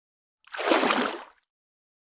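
A single wading step through deep water: a sloshing splash that swells in about half a second in and dies away about a second later.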